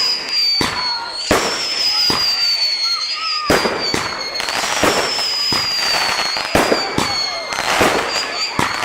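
Fireworks display: aerial shells bursting in a quick irregular series of sharp bangs, several a second at times, over a continuous high whistle that slowly drops in pitch and starts again, over and over.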